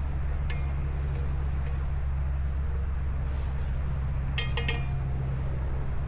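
A few light clinks and taps of small hard items being handled, with a quick run of ringing clinks a little past the middle, over a steady low hum.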